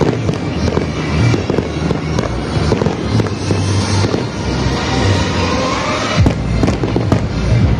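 Aerial fireworks bursting and crackling in quick succession, over loud music with a steady bass.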